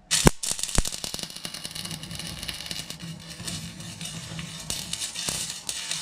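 MMA stick arc welding: two sharp cracks in the first second as the arc strikes, then the steady crackle and hiss of the arc running.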